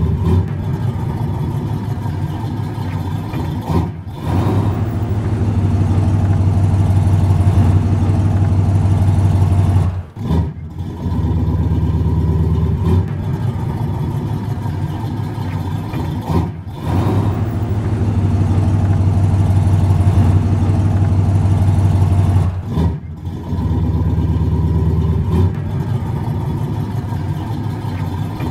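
Muscle car engine running and revving in a repeating cycle, dropping off briefly about every six seconds before coming back up to a loud, steady drone.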